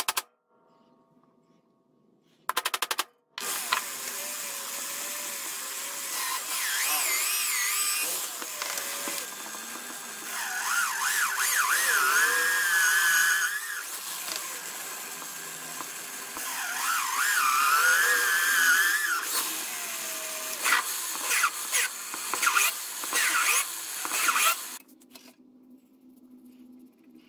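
A few sharp hammer taps on a center punch against a steel knife blank, then a benchtop drill press drilling through the steel for about twenty seconds. The bit squeals with a wavering pitch, louder while it is pressed in and broken by short pauses and choppy bursts near the end.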